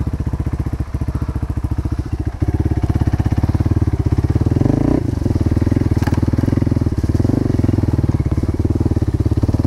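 Motorcycle engine running with an even, rapid pulse, getting louder about two and a half seconds in as it is given more throttle.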